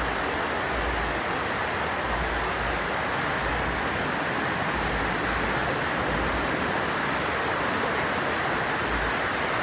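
Steady background hiss with irregular low rumbles underneath and no distinct event.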